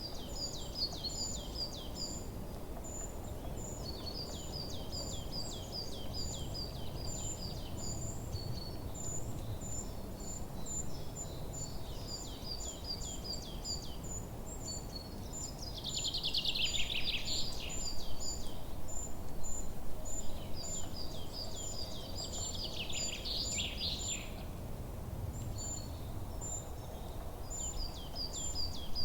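Forest birdsong: several small birds calling with rapid high, repeated chirps, and two louder trills that sweep down in pitch about halfway through and again a few seconds later. A steady low background noise runs underneath.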